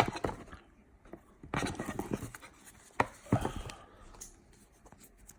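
A leather belt with a heavy metal buckle being handled: rubbing and scraping of the strap, with two sharp clicks, one at the start and one about three seconds in.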